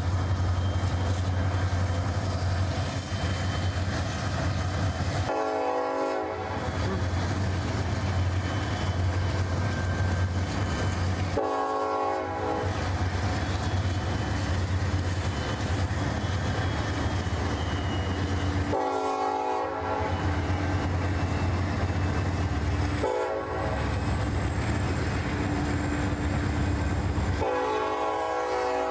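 Train running with a steady low rumble while its horn sounds five times, each blast about a second long and one much shorter.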